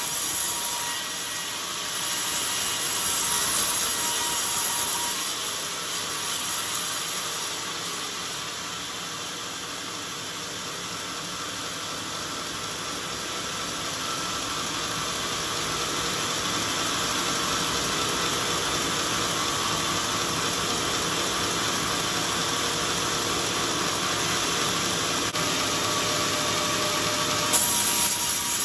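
Band saw blade cutting lengthwise through a hard old coconut palm log: a steady rasping hiss of the blade in the wood, swelling and easing a little in loudness. A brief knock sounds near the end.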